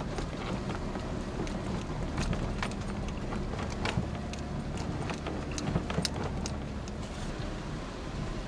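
Four-wheel-drive vehicle's engine running steadily at low speed on a rough dirt trail, heard from inside the cab, with scattered sharp clicks and knocks now and then.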